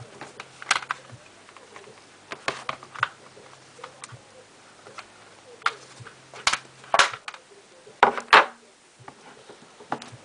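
Plastic clicks and snaps of a paintball goggle lens being worked free of the goggle frame by hand, the loudest snaps coming in a cluster from about six to eight and a half seconds in.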